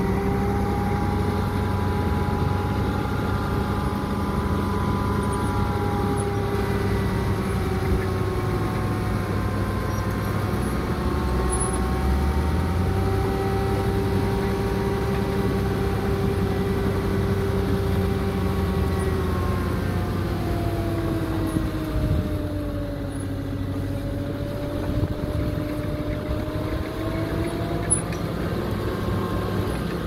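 Dump truck's diesel engine running steadily at raised revs to drive the hydraulic hoist as the loaded bed tips up. Its pitch wanders, sinks for a few seconds past the middle, then climbs again, with a few faint knocks.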